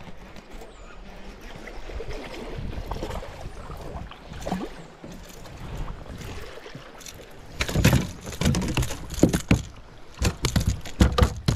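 Water sloshing and knocking around a kayak while a hooked fish is fought at the boat. About seven and a half seconds in, a run of sharp, irregular splashes and knocks begins as the fish is brought in.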